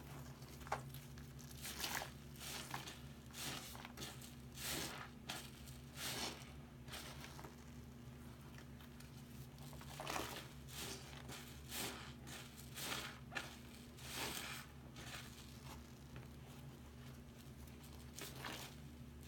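Soap-soaked sponges squeezed and wrung by hand in a sink of suds: irregular wet squelching and crackling of lather, in bursts a second or so apart, over a steady low hum.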